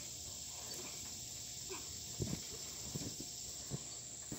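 Several soft low thumps of bodies landing and shifting on a trampoline mat, clustered from about halfway through to near the end, over a faint steady chorus of insects.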